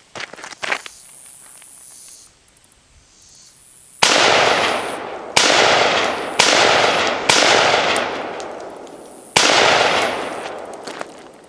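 Five 9mm pistol shots, fired about a second apart and starting about four seconds in, each followed by a long echo that dies away.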